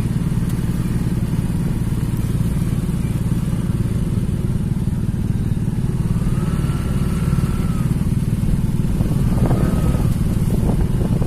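Motorcycle engine running steadily under way, a constant low rumble.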